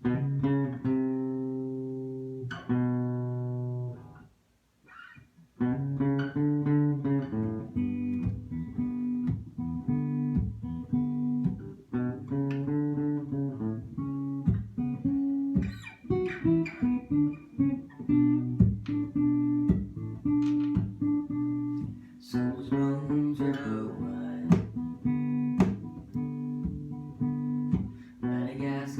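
Guitar intro: two ringing chords, a short pause about four seconds in, then a steady picked pattern.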